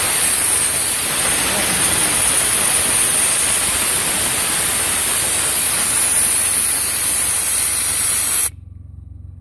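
Air rushing out of a Suzuki Jimny tyre through an ARB E-Z Deflator with the valve core pulled, as the tyre is aired down for off-road driving: a loud, steady hiss that cuts off suddenly about eight and a half seconds in.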